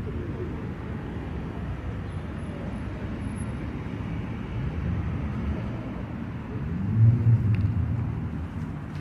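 Low, steady rumble of road traffic, with a vehicle engine passing loudest about seven seconds in.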